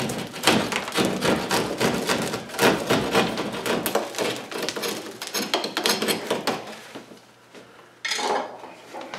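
Hand drywall saw rasping through the edge of a hole in sheetrock in repeated back-and-forth strokes, trimming the hole wider to fit an electrical box. The sawing stops about two-thirds of the way through, and a brief scrape follows near the end.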